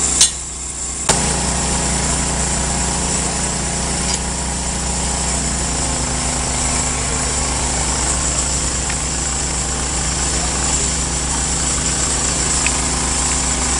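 An engine idling steadily: a low, even drone with no change in speed, with two short clicks about a second apart near the start.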